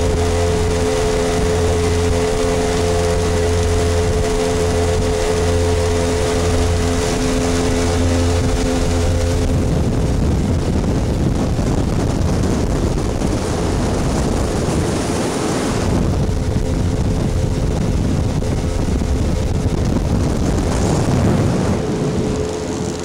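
Motorboat engine running steadily under way, a loud even drone. About ten seconds in its hum gives way to a rougher rush of wind and water noise.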